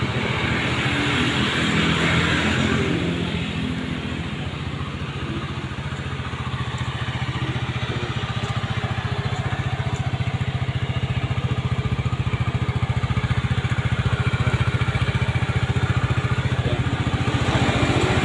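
Yamaha Fino scooter's single-cylinder four-stroke engine idling steadily.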